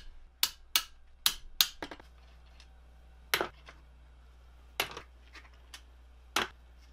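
Sharp metal-on-metal taps and clinks from a steel rod and parts knocking against a worm gearbox housing as it is dismantled. A quick run of taps in the first two seconds, then a few scattered clinks.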